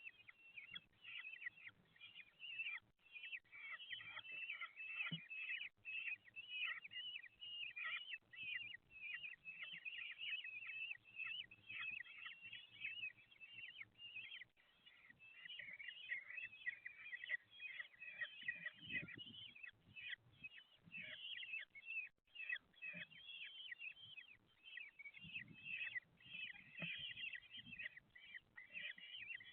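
Common kestrel chicks calling, a dense run of rapid, high chirps without a break while they are fed. A few soft low bumps come in the middle and later.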